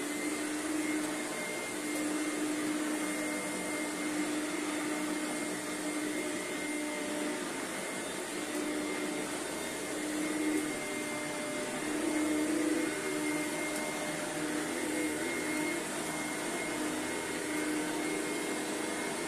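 Bio SpeedClean vacuum cleaner running steadily as it vacuums: a motor hum with a pitched drone that swells and fades, and a faint high whine. The owner says it needs a new belt.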